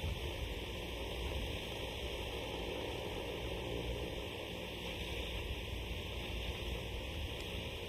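Steady hiss with a low rumble underneath, even throughout, with no distinct events.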